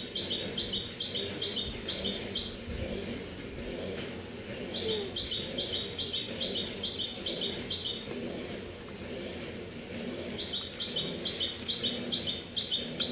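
A small bird singing a quick run of short, high, identical notes, about three a second, repeated in three bouts of two to three seconds each, over low steady background noise.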